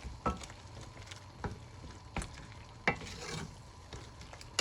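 A spoon stirring and sautéing butter chicken sauce in a pot: sharp clacks and scrapes against the pot every second or so over a faint sizzle.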